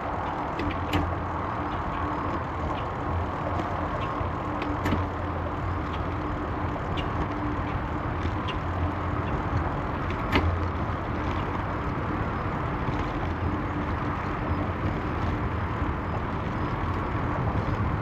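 Bicycle rolling along a trail: a steady rolling rumble with a faint steady hum and a few sharp clicks.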